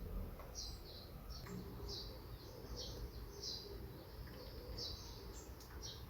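Small songbirds chirping, a steady run of short, high, down-slurred notes about twice a second, over a low rumble.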